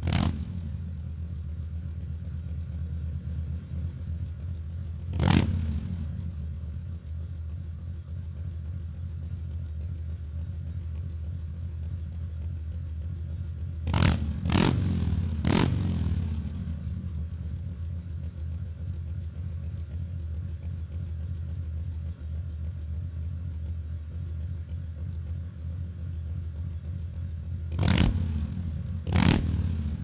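Harley-Davidson V-twin motorcycle engine idling with a steady low rumble, blipped on the throttle for short revs about six times, in pairs around the middle and near the end.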